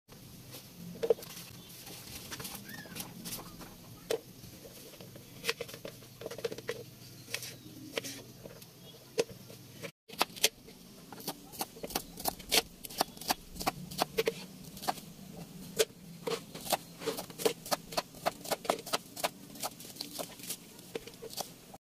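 Kitchen knife cutting vegetables on a cutting board. Scattered knocks come in the first half; after a short break about halfway, a quicker run of sharp knife strikes follows, about two or three a second, as a red onion is sliced.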